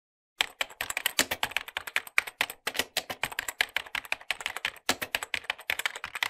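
Fast typing on a computer keyboard, a dense run of key clicks with brief pauses, starting about half a second in out of complete silence.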